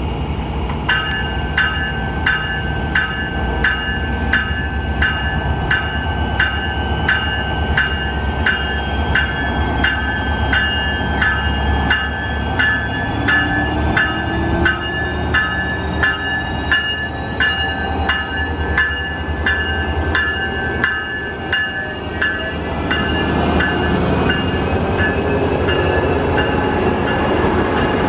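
Amtrak Pacific Surfliner train with a Siemens Charger diesel locomotive moving slowly along the platform, its bell ringing about twice a second over the engine's low rumble. The bell stops a few seconds before the end, and the rumble of the passing passenger cars' wheels grows louder.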